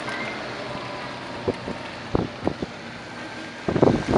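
Land Cruiser FJ60 driving through shallow floodwater: a steady rushing noise with a few short knocks in the middle, then a louder, irregular rushing and splashing near the end.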